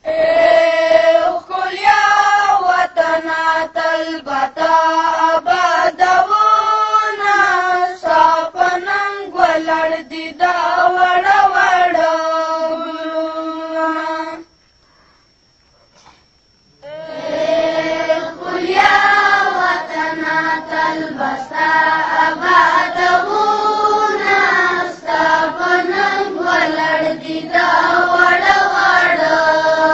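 A high voice singing a Pashto patriotic song (milli naghma) in a long-held, chanted melody without instruments, breaking off for about two seconds halfway through before going on.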